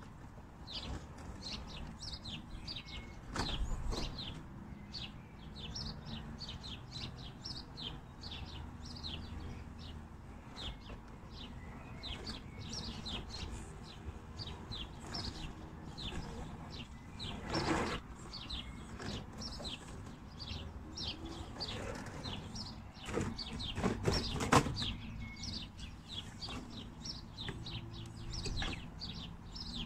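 Small birds chirping over and over in short, quick, falling calls, several a second. A few louder knocks or rustles stand out, one a few seconds in and more past the middle.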